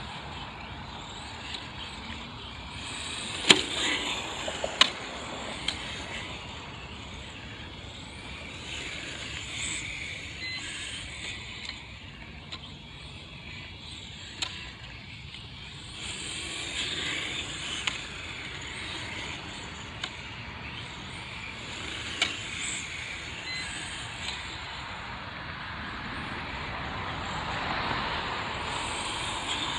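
Serpent Project 4X electric RC touring car on foam tires lapping an asphalt course, its motor whine and tire hiss swelling and fading with each pass. A few sharp knocks cut through, the loudest about three and a half seconds in.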